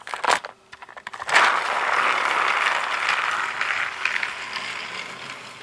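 Battery-powered Trackmaster Flying Scotsman toy engine handled on the track with a few clicks, then its small electric motor and gears whirring steadily as it climbs a plastic track incline, slowly growing fainter.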